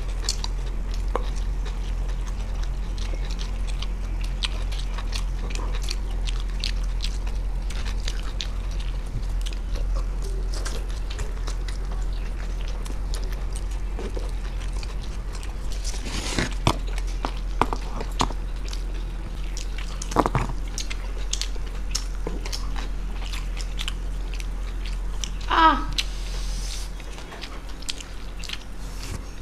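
Two people chewing and biting into egg rolls close to a table microphone, with small crackles from the rolls' paper wrappers. A few louder smacks and gulps come a bit after halfway, all over a steady low hum.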